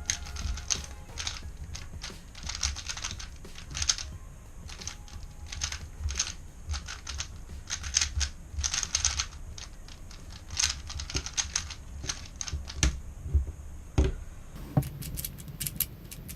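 Plastic 3x3 Rubik's Cube turned rapidly by hand: quick runs of clicking clacks from the turning layers, broken by short pauses.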